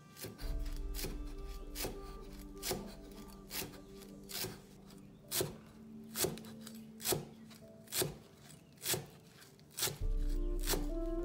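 Cleaver chopping cilantro on a wooden end-grain chopping block: single sharp chops at an even pace of a little over one a second, over background music.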